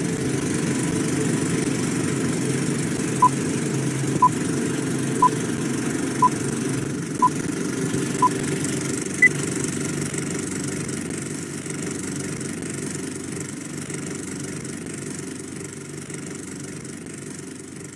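Film-leader countdown sound effect: a steady film projector whirr under short beeps once a second, six at one pitch and then a single higher beep. The whirr fades out over the last several seconds.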